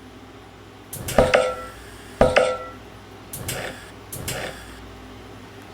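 Four knocks or clacks of hard objects: two sharp ones with a brief ringing tone, a little over a second apart, then two softer ones.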